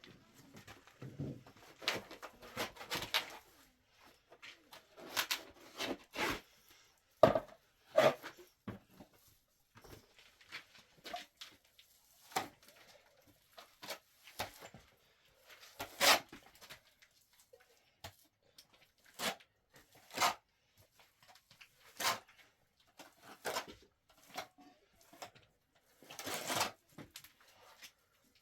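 Irregular sharp knocks and clicks, some in quick clusters, with short quiet gaps between them.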